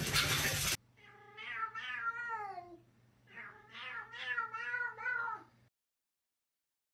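A loud, noisy sound cuts off under a second in. A domestic cat then meows twice, two long drawn-out meows that waver up and down in pitch, separated by a short gap.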